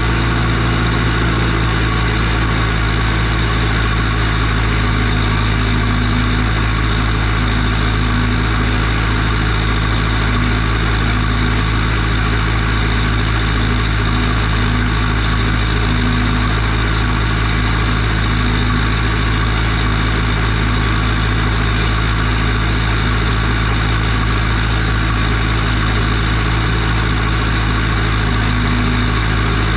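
Ursus 1014 tractor's turbocharged four-cylinder diesel (Martin Z 8002.12, 4.6 litres) running loud and steady at a constant engine speed while pulling a disc harrow through stubble.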